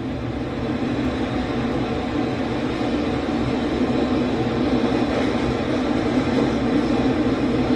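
Steady, even rushing noise of a machine or blower running, unchanging throughout.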